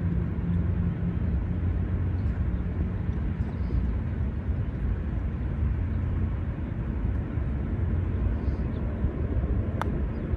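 Steady low outdoor rumble, with a single sharp click near the end as a putter strikes a golf ball.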